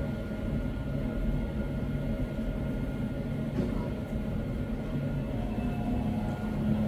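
A steady low mechanical hum and rumble, with faint thin whining tones held above it.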